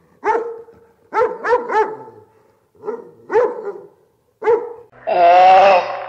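Shiba Inus barking in short, sharp yips, some single and some in quick runs of two or three. About five seconds in, a louder, drawn-out wavering cry lasts about a second.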